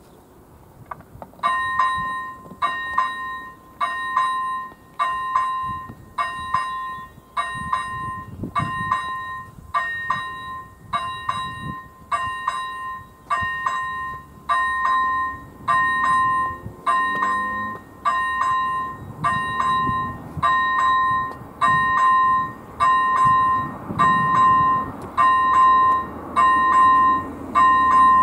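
Electronic warning bell of an AŽD 97 level-crossing signal (first-generation electronic bell) starting about a second and a half in and ringing a steady two-tone ding a little more than once a second, growing slightly louder. It means the crossing has been activated for an approaching train.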